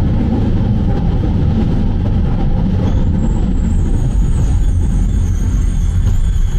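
Ganz MFAV metro train running through the tunnel, heard from inside the car: a loud, steady rumble of wheels on rails. A thin high whine joins about halfway through.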